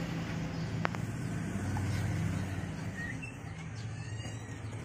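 A low, steady rumble that swells about two seconds in and eases off, with a short sharp click about a second in and a few faint bird chirps over it.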